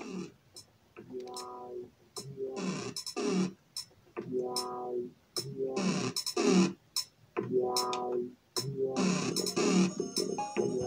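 A music CD playing through the speakers of a small ONN portable boombox CD player. A pitched chord repeats about every second and a half, each time with a short burst of hiss.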